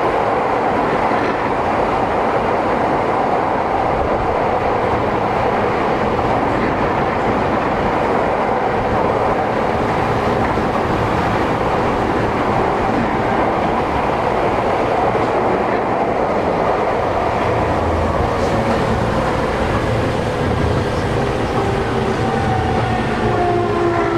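Running noise inside a Toei 10-300 series subway car: a steady rumble of wheels on rail, heard from inside the car underground. Near the end a motor whine slides down in pitch as the train slows.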